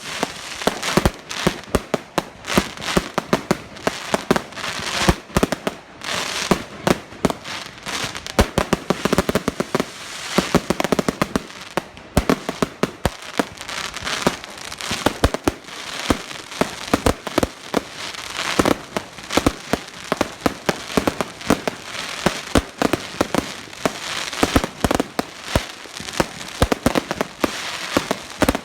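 Fireworks going off in a dense barrage: irregular sharp bangs and pops, several a second, with crackling between them.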